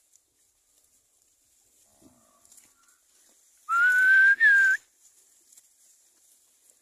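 A person whistling to drive a herd of cattle: one loud two-part herding whistle about four seconds in, a long steady note rising slightly, then a short higher note.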